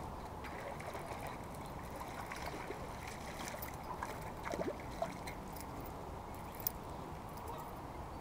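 Water splashing and sloshing at the bank as a hooked bass is reeled in and brought to the shore, over a steady hiss, with two sharp clicks in the middle.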